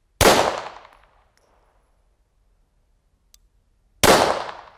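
Two pistol shots about four seconds apart from an FN 1910/22 semi-automatic pistol in 9 mm short (.380 ACP). Each is a sharp crack that dies away within about a second.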